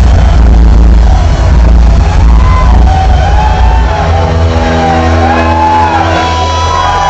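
Live heavy metal band playing loud, with a heavy bass and drum low end. About four seconds in the low end drops away, leaving ringing guitar tones with shouts from the crowd.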